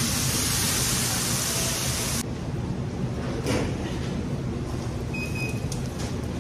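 Carrots and green beans sizzling and hissing in a large iron kadai as they are tossed with a metal spatula over a gas burner. About two seconds in the loud hiss cuts off abruptly, leaving a low steady rumble with scattered scrapes and clinks of the spatula against the pan.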